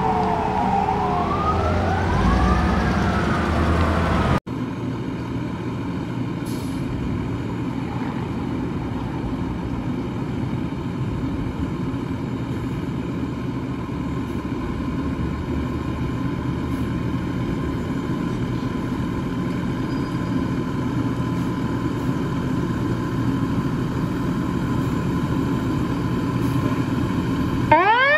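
A fire engine's siren wails over its engine as the engine approaches. Then a different fire engine's diesel runs at a steady idle for about twenty seconds. Near the end that engine's siren starts up and winds upward in pitch as the rig pulls out.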